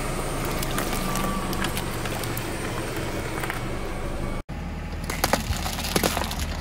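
Car running with a steady low hum while its tyre slowly rolls over and crushes a tomato stuck with toothpicks, with a few faint cracks. After an abrupt cut, the tyre crushes eggs and balloons in a carton with several sharp cracks.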